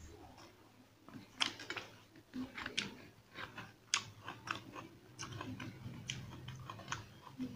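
Close-up chewing and mouth noises of a person eating by hand, with about half a dozen sharp, irregular crunches.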